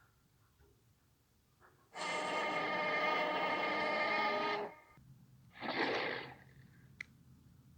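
T-Rex roar sound effect: one long, steady roar of about two and a half seconds, starting about two seconds in. About a second after it ends comes a shorter breathy huff, then a single sharp click.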